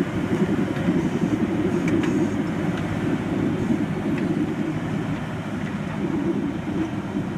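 Hürlimann SX-1500 tractor's diesel engine running steadily under load while ploughing, a dense low rumble.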